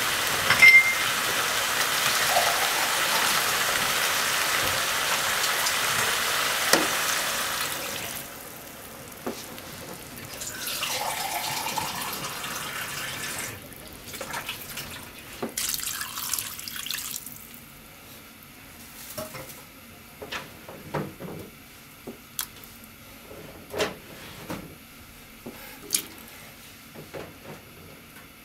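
Water poured into a pot of stir-fried pork and vegetables: a long steady pour for about eight seconds, then two shorter pours, then scattered drips and small clicks.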